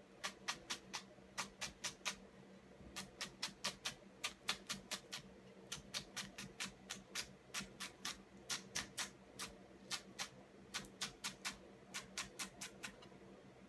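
Kitchen knife finely chopping myoga on a cutting board: quick, even taps of the blade on the board, about four a second, in runs broken by short pauses, stopping near the end.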